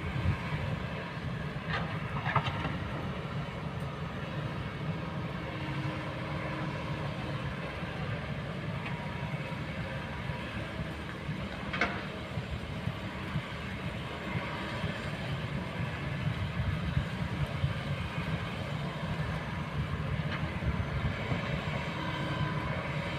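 Kobelco hydraulic excavator's diesel engine running steadily under work, with a few short knocks about two seconds in and again near the middle.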